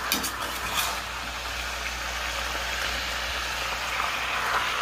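Pork skins starting to fry in lard in a stainless steel pot, a steady sizzle, with a few clinks of a metal slotted spoon against the pot in the first second.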